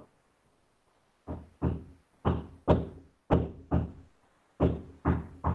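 A run of sharp thuds, knock-like and coming in quick pairs about once a second, starting about a second in and speeding up near the end, heard over a video-call link.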